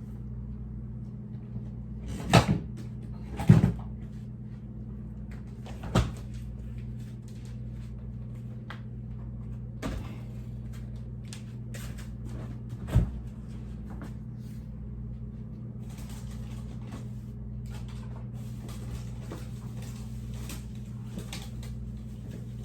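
Containers and refrigerator parts being handled as a fridge is emptied. Several sharp knocks and clunks come in the first six seconds, with single ones at about ten and thirteen seconds. A run of lighter clicks and rattles follows near the end, over a steady low hum.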